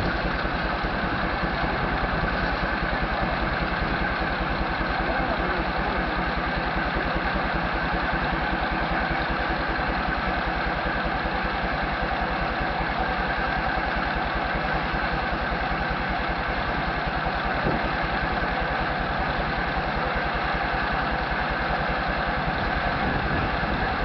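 Frick steam engine running steadily on the sawmill, with a rapid, even mechanical beat.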